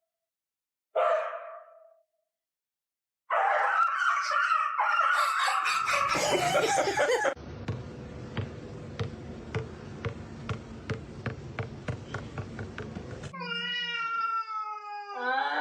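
Cats meowing and yowling in several separate bursts, ending in one long drawn-out meow that falls slightly in pitch.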